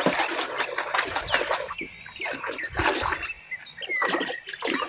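Small birds chirping over irregular splashing and rubbing as a mud-caked plastic toy gun is washed with water.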